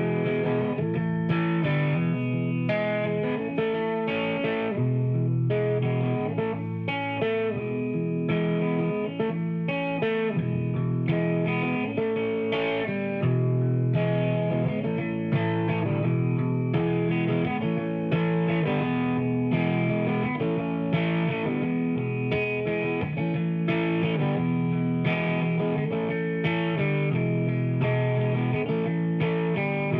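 Background music: distorted electric guitar playing over a steady rhythm.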